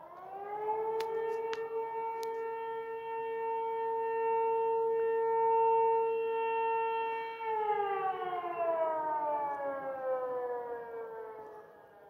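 A motor-driven fire siren sounding a fire alarm: it winds up to a steady wail, holds it for about seven seconds, then slowly winds down near the end.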